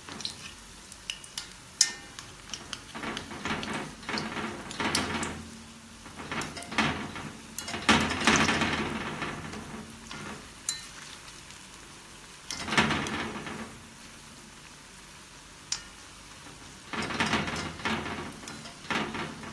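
Methi pakoda, gram-flour fritters, deep-frying in hot oil in a cast-iron kadai, sizzling in surges as a steel spoon turns them over. There are sharp clinks of the spoon against the pan.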